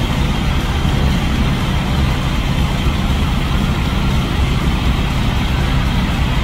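Semi truck's diesel engine idling steadily, a constant low rumble.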